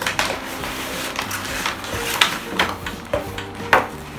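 A hair clipper kit being unboxed by hand: its cardboard box and clear plastic packaging tray are handled, giving a run of sharp clicks and knocks, the loudest about two seconds in and near the end. Quiet background music runs underneath.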